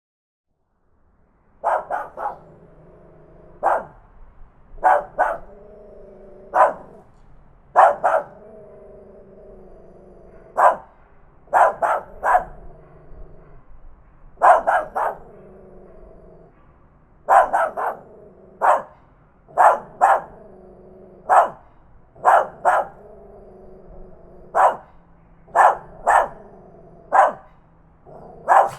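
A tiny dog barking loudly in short, sharp barks, singly and in quick pairs, every second or two, starting about a second and a half in.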